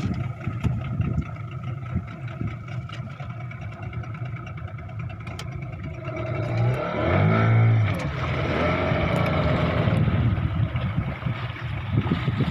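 Fishing boat's motor running steadily, with wind and water noise; about seven seconds in its pitch briefly rises and falls again.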